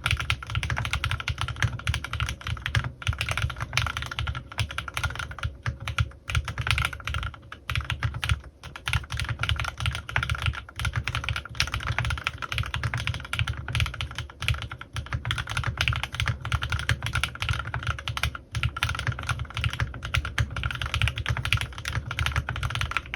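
Continuous fast typing on a CannonKeys Rekt1800 custom mechanical keyboard with lubed Gateron Milky Yellow linear switches, PBT keycaps and foam dampening: a dense run of keystrokes with a few short pauses.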